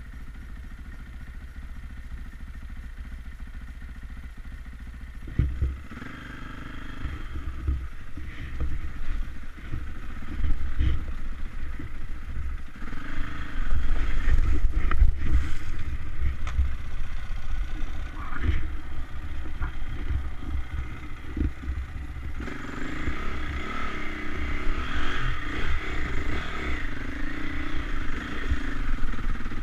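KTM enduro motorcycle heard from the rider's helmet camera, running quietly at first, then pulling away and riding through a shallow rocky stream, with water splashing around halfway through. Near the end it climbs a stony track with the engine working harder, with clatter from the rocks.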